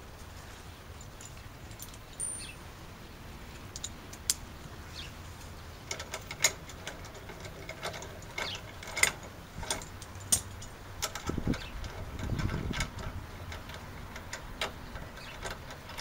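Scattered sharp metallic clicks and clinks of hand tools and mounting hardware being handled, busiest in the middle, with a couple of dull thumps a little past the middle.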